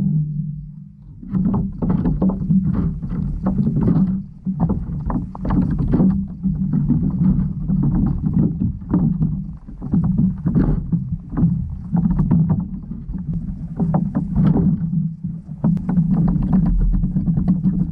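Underwater noise picked up by a submerged GoPro: a steady low hum under dense, irregular crackling clicks and knocks.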